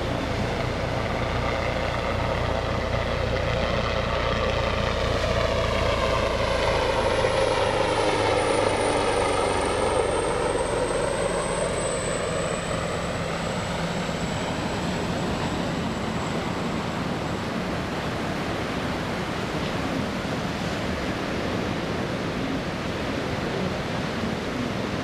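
Leonardo AW139 twin-turbine helicopter flying past. Rotor and engine noise builds to a peak about eight to ten seconds in, with a high turbine whine that falls in pitch as it goes by. It then fades into a steady rushing noise.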